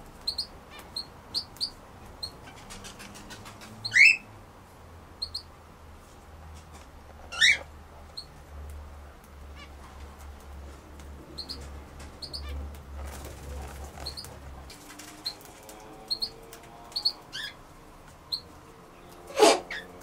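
European brown hare snorting, a short sharp sound about four seconds in, again at seven and a half seconds and loudest near the end, over small birds chirping repeatedly in the background.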